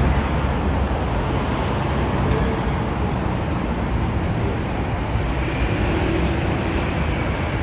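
Steady city street traffic noise: a continuous low rumble of cars and other vehicles on a busy road.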